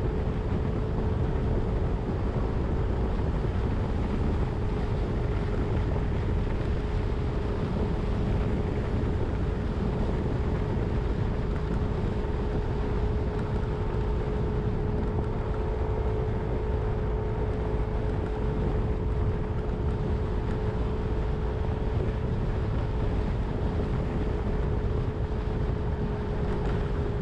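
A 2022 Yamaha Zuma 125 scooter's single-cylinder four-stroke engine runs steadily at cruising speed with a constant whine, over a low rumble of wind on the microphone.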